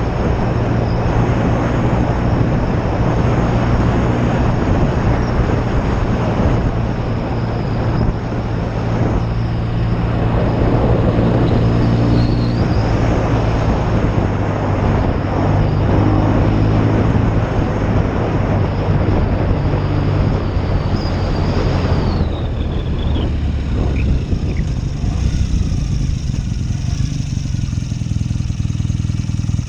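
BSA Lightning 650 parallel-twin motorcycle engine running while the bike is ridden, under heavy wind and road rush. About two-thirds of the way through, the wind rush falls away as the bike slows, leaving the engine's steady note.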